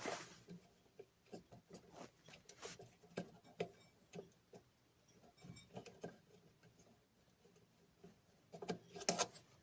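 Faint, scattered clicks and taps of small parts being handled while a new carbon brush is fitted into a washing machine motor, with a few louder knocks near the end.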